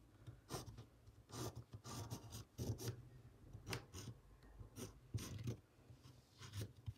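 Faint pencil scratching in short, irregular strokes as it traces around a cardboard template onto fabric.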